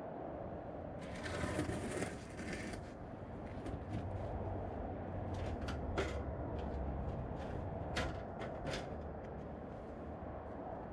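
Items being handled: a rustle, then scattered light knocks and clicks, over a steady low background rumble.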